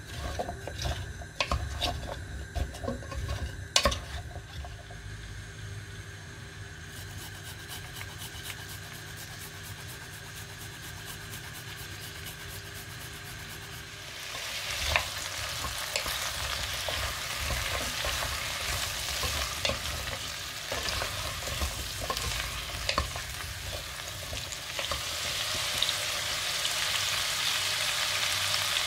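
A wooden spoon knocking and scraping through hard chunks of raw vegetables in a pot, then, from about halfway, a louder steady rasping as fresh ginger is grated on a metal grater over the pot.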